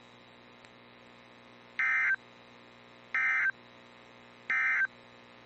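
Emergency Alert System SAME end-of-message data bursts: three short buzzy digital tone bursts about a second apart, over a faint steady hum. They signal that the weather warning message has ended.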